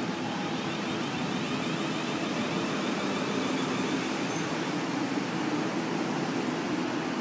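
Steady hum and hiss of a Siemens Desiro electric multiple unit (class 450/444) at the platform, a little louder around the middle.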